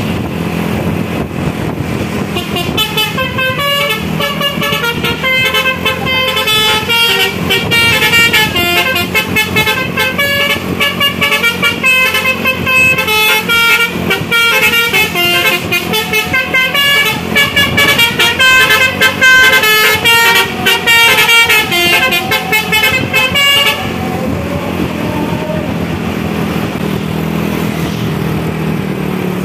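Basuri, a multi-tone telolet horn on a tour bus, playing a fast melody of quickly changing notes over the bus engine. The melody starts a couple of seconds in and stops about five seconds before the end, leaving the engine running alone.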